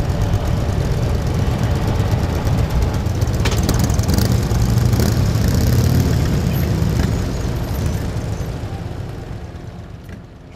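Vehicle engines running close by with a deep, steady hum, fading away over the last few seconds as they move off.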